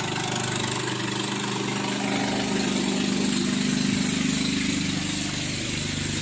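Small engine running steadily at an even pitch.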